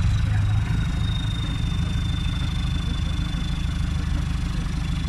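An off-road 4x4's engine idling steadily, with a faint high whine that drifts slightly lower in pitch.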